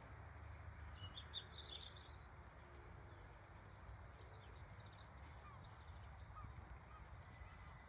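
Faint outdoor ambience: birds chirping in two short bursts, about a second in and again around four seconds in, over a low steady rumble.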